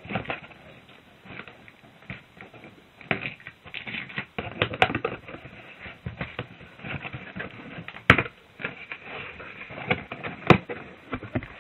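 A cardboard shipping box being opened and its packing handled by hand: irregular rustles, scrapes and knocks, with a few sharp snaps, the loudest about eight seconds in.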